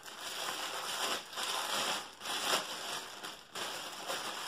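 Clear plastic wrapping crinkling and crackling as it is pulled off a nonstick pan, with brief lulls about two seconds in and again about three and a half seconds in.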